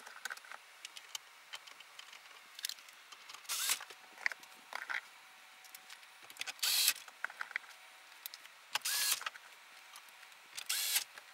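Small cordless electric screwdriver driving the radio's mounting screws into the dash, with four short spins a few seconds apart and light clicks of the tool and screws between them.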